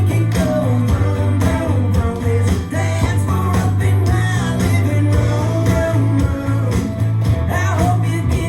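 A recorded song playing for line dancing, with a singer, guitar and a steady bass line.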